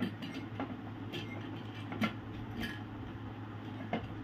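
Clear plastic lid with a rubber seal being pressed and locked onto a stainless steel mixer-grinder jar: a handful of light clicks and taps, over a steady low hum.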